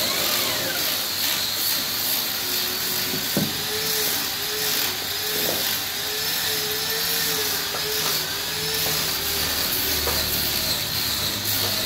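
Steady hissing machine noise with a faint whine that wavers in pitch, and a few brief clicks.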